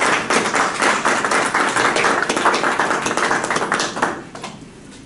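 Audience applauding, a dense run of quick claps that dies away about four and a half seconds in.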